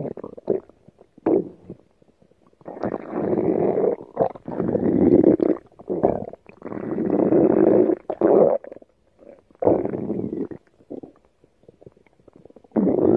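Stomach growling: a run of rumbles, most about a second long, with short gaps between them and a few brief blips. A fresh rumble starts near the end.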